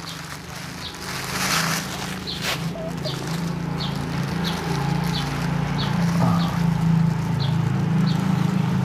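A steady low hum with a short high chirp repeating about every two-thirds of a second. About a second and a half in there is a brief rustle, then a single click.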